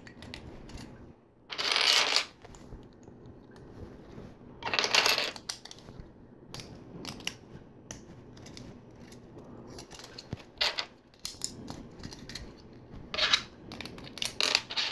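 Plastic LEGO pieces clicking and clattering as they are picked from a pile and snapped together, with two longer rattling bursts about two and five seconds in.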